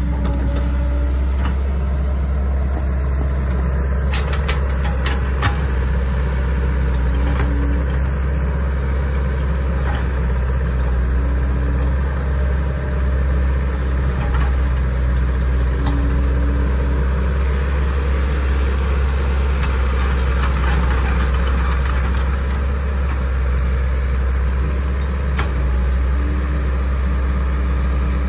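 Caterpillar E120B hydraulic excavator's diesel engine running steadily as the machine digs mud. A higher hum swells and fades every several seconds, and there are a few light knocks in the first seconds.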